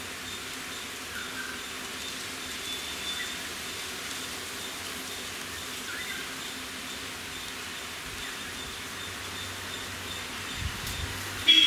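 Outdoor ambience: a steady background hiss with a few faint, short bird chirps scattered through. Near the end comes one sharp knock, the loudest sound.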